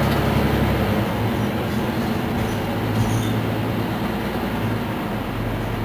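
Mercedes-Benz Citaro C2 city bus standing with its rear engine idling: a steady low engine hum.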